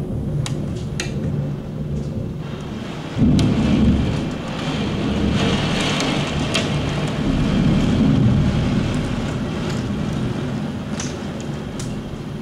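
Heavy downpour with rolling thunder. A loud clap of thunder breaks in about three seconds in and rumbles on, swelling again a few seconds later, over the steady hiss of rain.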